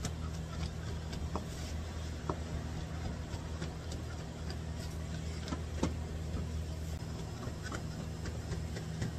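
Kitchen knife chopping dried cranberries on a plastic cutting board: irregular light taps of the blade, roughly two a second, over a steady low hum.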